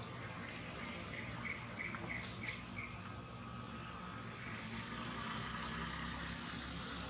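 Insects buzzing steadily outdoors, with a quick run of about six short, evenly spaced chirps between one and three seconds in and a single brief tap near the end of that run.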